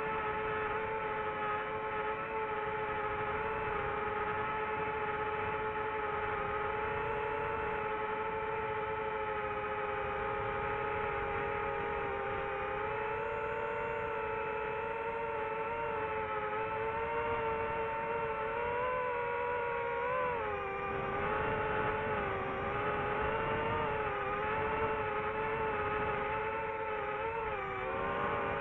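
DJI FPV drone's electric motors and propellers whining steadily, then wavering up and down in pitch about two-thirds of the way through.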